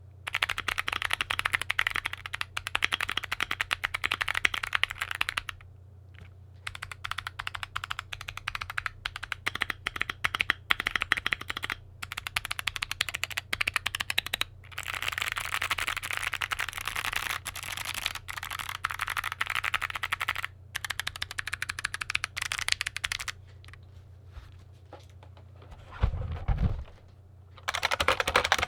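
Fast typing on a clicky mechanical keyboard: dense runs of sharp key clicks broken by short pauses, with a longer pause near the end. A steady low hum lies underneath, and a single low thud comes just before the typing starts again.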